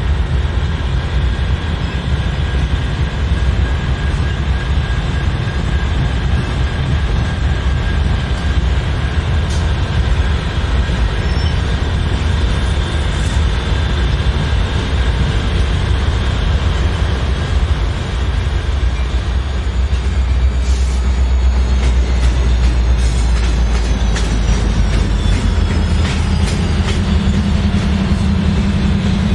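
Diesel-electric freight locomotives rolling slowly past close by, their engines running with a heavy, steady rumble that grows louder in the last third. Thin, high wheel squeals from the rails come and go over it.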